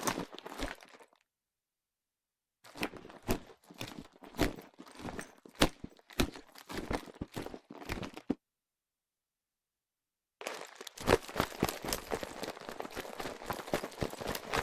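Pleather handbag with a metal chain strap being handled: crinkling material with sharp clicks and knocks. It comes in three bursts broken by two gaps of dead silence, the last starting about ten seconds in and running dense and unbroken.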